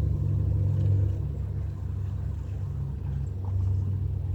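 A vehicle's engine running, a steady low rumble.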